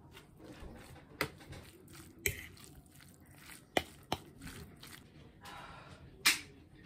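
Fork mixing cooked pumpkin and onion in a ceramic bowl: soft squishing of the food with a few sharp clinks of the metal fork against the bowl. Near the end a salt-and-pepper shaker is shaken over the bowl, followed by the loudest clink.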